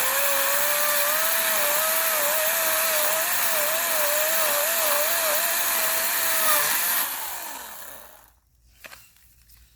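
Chainsaw cutting through a log, its pitch wavering under the load of the cut, then easing off and winding down about seven seconds in.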